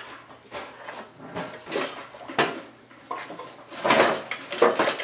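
Irregular clanks and rattles of metal parts and tools being handled during a riding-mower tear-down, with a louder clatter about four seconds in.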